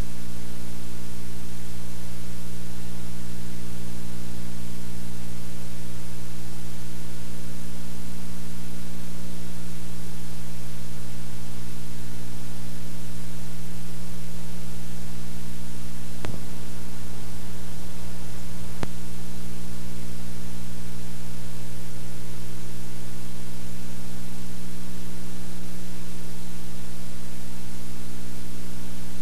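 Steady hiss and electrical mains hum, with two brief clicks a little past the middle.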